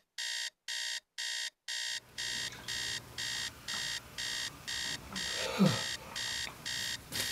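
Digital alarm clock beeping: high-pitched electronic beeps repeating about twice a second, without a break. About five and a half seconds in there is a short low falling sound.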